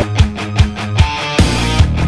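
Background music with a steady drum beat, about two and a half beats a second; the sound becomes fuller and denser about one and a half seconds in.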